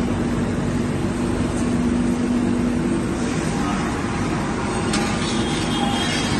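A machine running steadily: a constant hum with one steady low tone and a hiss over it.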